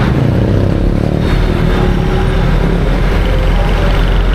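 Passenger jeepney engine running with road noise, a steady low rumble.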